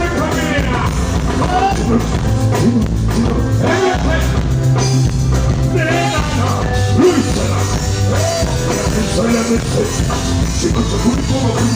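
Amplified band music with a heavy, steady bass line and a lead singer's voice gliding over it.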